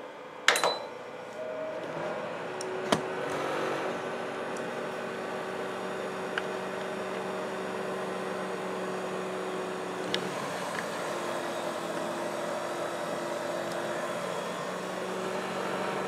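Gourmia digital stainless steel toaster oven air fryer starting up in air-fry mode at 450°F: a beep about half a second in, then its convection fan and heating running with a steady, noisy whir and hum as it preheats.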